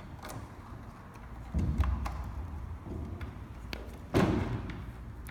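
Handling noise from hands working on an electric scooter's frame and wiring: scattered light taps and clicks, with two louder thumps, one about a second and a half in and one about four seconds in.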